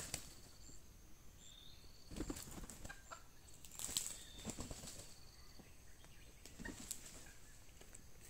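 Faint, scattered bursts of wing flapping and scuffling from red junglefowl, a few seconds apart.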